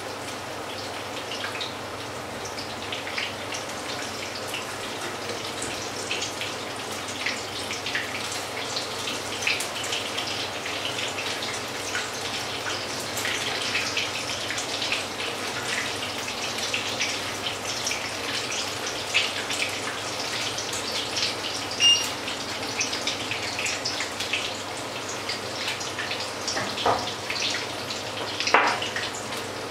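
Batter fritters frying in hot oil in a pan: a steady sizzle full of small spitting crackles. A few metallic clinks of a utensil against the pan near the end.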